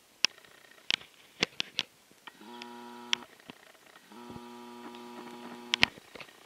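A small camera zoom motor gives a steady electric hum twice, the second time for about a second and a half, as the lens zooms in. Several sharp clicks and knocks come mostly in the first two seconds, with the loudest near the end.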